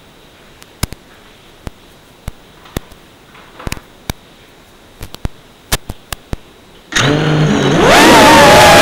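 Scattered faint clicks over low background, then about seven seconds in a whoop-style FPV drone's motors start with a few stepped tones. About a second later they spin up into a loud, wavering, rising multi-tone propeller whine as the drone lifts off.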